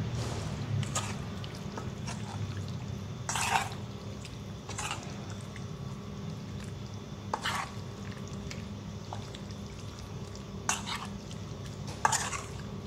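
Wet squelches of a hand kneading raw beef chunks into thick spice paste in a metal pot: about six short squishes, a second or two apart, over a steady low hum.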